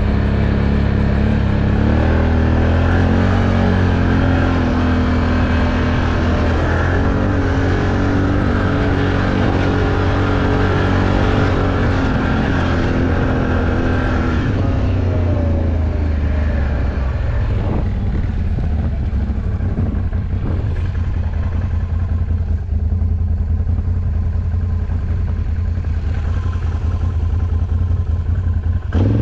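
Off-road vehicle engine running under throttle, its pitch shifting up and down through the first half, then running lower and steadier, with a quick rev right at the end.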